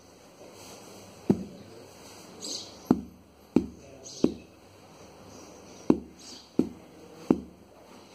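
A baby's bare feet thumping on a blanket-covered floor as she kicks: about seven short, dull knocks at uneven intervals, several coming in quick pairs.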